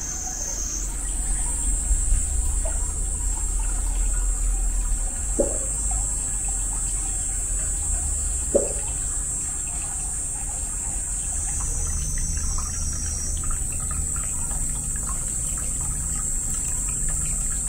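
Hot spring water trickling steadily into an open-air rock bath, with two single plops about five and eight and a half seconds in.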